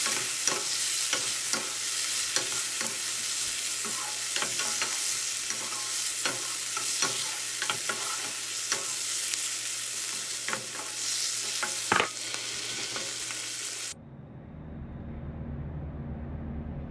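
Chicken and vegetables sizzling in a hot wok while a wooden spoon stirs them, with frequent light knocks of the spoon against the pan and one sharp knock about 12 seconds in. About 14 seconds in the sizzling stops and a quieter low steady hum takes over.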